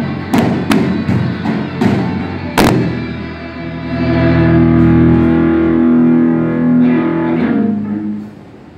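Live rock band with distorted electric guitars, bass and drum kit: several sharp drum hits over the guitars in the first few seconds, then a final distorted guitar chord held and ringing out, dropping away near the end.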